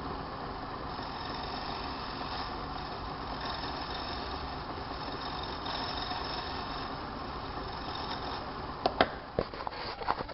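Small lathe running with a steady low hum while a hand-held cutting tool scrapes a spinning bone chess pawn, giving a steady hiss of cutting. Near the end the cutting stops and a few sharp knocks follow.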